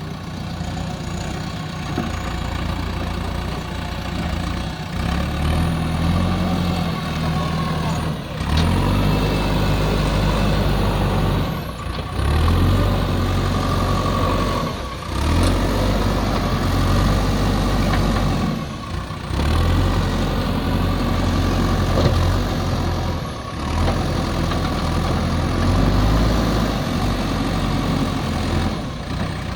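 Backhoe loader's diesel engine running loud and steady, its note swelling and easing back every three to four seconds as the hydraulic arm is worked under load.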